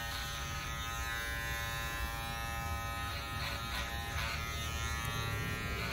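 Corded electric hair clipper running with a steady buzz while cutting hair over a comb at the back of the head, with a few faint rasps about three to four seconds in as the blade passes through the hair.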